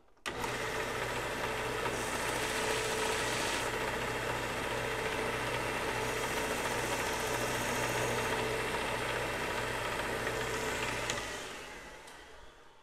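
Bench belt sander switching on and running steadily while the cut end of a short steel tapered pin is ground on it to chamfer and flatten its tip, the grinding hiss louder for a while about two seconds in. It is switched off near the end and winds down.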